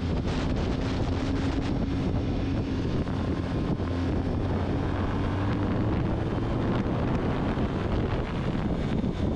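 Motorcycle engine running steadily at road speed, its note rising slightly around the middle, under heavy wind noise buffeting the bike-mounted camera's microphone.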